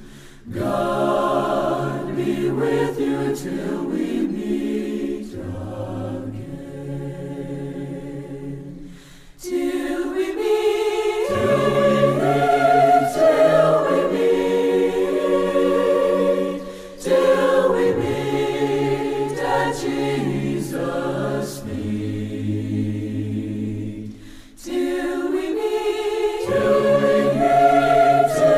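A choir singing a slow hymn in long held chords, with brief breaks between phrases.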